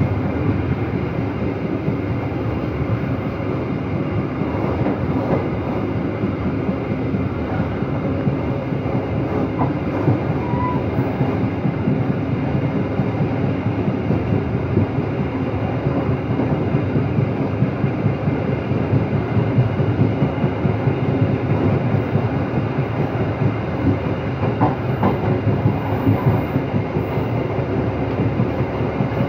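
Passenger train running at speed, heard from inside a carriage: a steady rumble of wheels on the rails and the moving coach.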